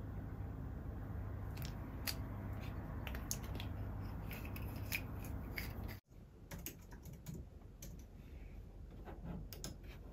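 A steady low hum with scattered light clicks and taps, then a sudden cut about six seconds in to typing on a low-profile Apple keyboard: quick, irregular, light key clicks.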